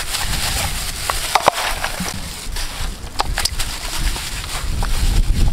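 Gloved hand mixing raw pork ribs with salt, sugar and soy sauce in a metal bowl: wet squishing and rustling of meat and plastic glove, with a few sharp clicks.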